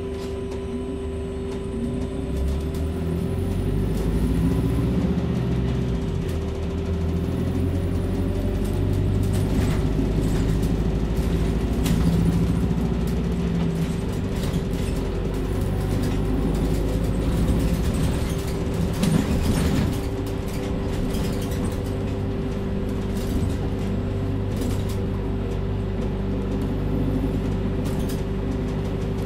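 Volvo 7900A Hybrid articulated bus under way, heard from the passenger cabin. Its diesel-electric hybrid drivetrain runs with a steady whine over a low drone, getting louder a few seconds in, while the interior rattles and clicks.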